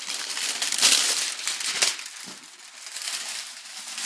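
Clear plastic factory wrap being pulled off a cardboard box and bunched up, crinkling. It is loudest about a second in, then goes on more softly.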